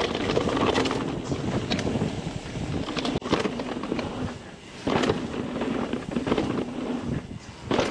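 Mountain bike riding fast down a dirt trail, with wind on the microphone, tyre noise and the chain rattling against the frame. For about the first three seconds the rattle is dense and louder: an LTWoo A12 rear derailleur with no clutch letting the chain slap. After a sudden change the ride is quieter, on the clutched LTWoo TX rear derailleur that keeps the chain tensioned.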